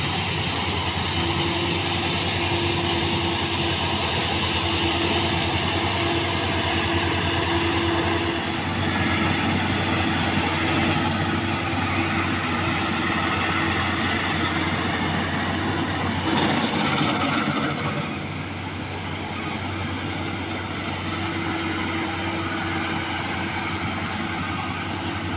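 Maxxi Bimo 102 combine harvester running steadily, engine hum under a dense mechanical clatter, dropping a little in loudness about two-thirds of the way through.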